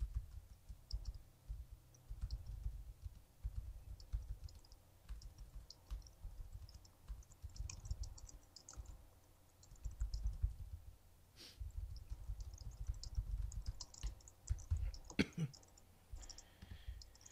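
Typing on a computer keyboard and clicking a mouse: light, irregular clicks with dull low thumps under them, a couple of sharper clicks in the second half.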